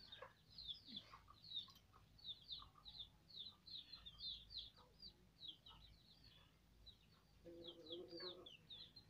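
Faint birds chirping: a steady run of short, high, down-curving chirps, several a second, with a brief low hum about eight seconds in.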